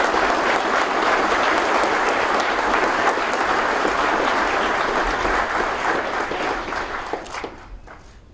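An audience applauding: steady clapping from a roomful of people that dies away near the end.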